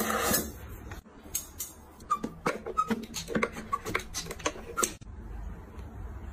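Irregular run of sharp clicks and light clinks, some with a brief ring, as hard lipstick and lip-gloss tubes are taken out of and knocked against a metal makeup case. A short rush of noise comes at the very start, and the clicking stops about five seconds in.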